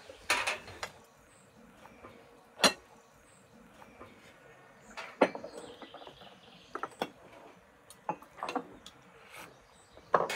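Tableware clinking and tapping as people eat: scattered sharp knocks of cutlery, tea glasses and plates, a few seconds apart.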